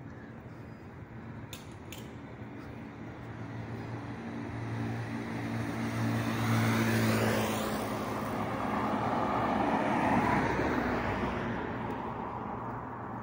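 Road traffic: a motor vehicle passes. Its engine hum builds to a peak about halfway, followed a few seconds later by tyre noise that swells and then fades.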